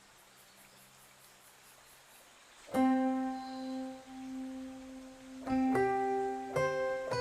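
Near silence for the first couple of seconds, then background piano music comes in with single struck notes that ring and fade, a few more notes following near the end.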